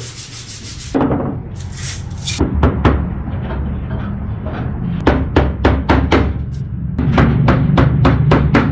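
Music with a steady bass line, overlaid from about a second in by sharp knocks that come quickly, about three or four a second, in the second half.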